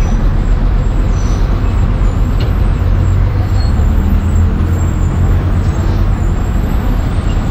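Bus engine running steadily with road noise as the bus drives along, heard from inside the front of the bus.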